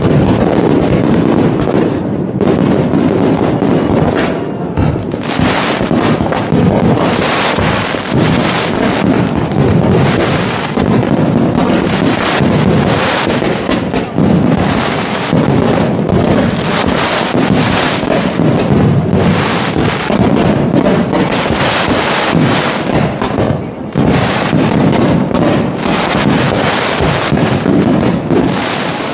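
Dense fireworks barrage: a continuous run of overlapping explosions and crackling, one burst crowding into the next with no pause.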